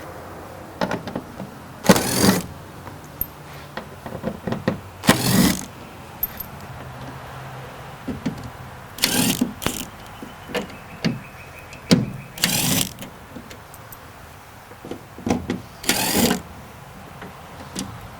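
Power driver spinning out Torx bolts from a tailgate cap in short bursts of about half a second, five of them, with small clicks and knocks of handled tools and parts between.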